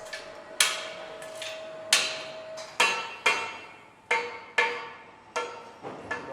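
Metal striking metal: a series of about eight sharp clanks at uneven intervals, each ringing briefly and dying away. A steady machine tone under them stops nearly three seconds in.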